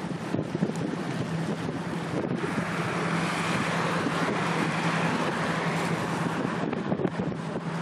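Road traffic: a car drives past close by, its tyre and engine noise swelling for about four seconds in the middle and then fading, over wind on the microphone and a steady low hum.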